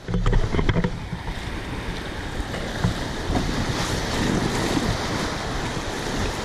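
River whitewater rushing and splashing around a canoe being paddled through rapids, with wind buffeting the microphone. It starts suddenly at the first second.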